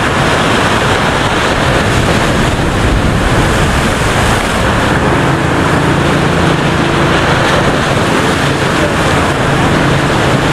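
Ocean surf breaking and washing over the jetty rocks, a steady dense rush, with wind buffeting the microphone. A faint low steady hum joins about halfway through.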